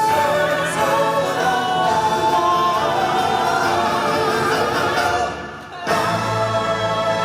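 Music with a choir singing held, gliding notes. It fades about five seconds in and breaks off, then a new passage starts.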